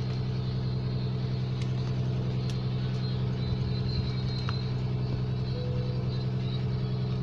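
Fishing boat's engine running steadily with an even low drone, with a few faint clicks and knocks on deck.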